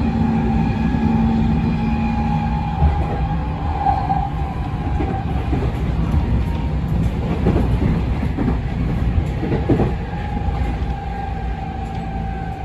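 Cabin running sound of a JR West 207 series electric train with Mitsubishi IGBT-VVVF inverters. A steady motor and inverter whine sits over rumbling wheels, with a few knocks from the rail joints. The whine dips slightly in pitch near the end as the train slows for a station stop.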